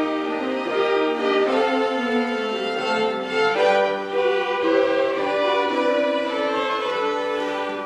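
High school string orchestra playing a piece, violins carrying the melody over cellos, in sustained bowed notes that change about every second.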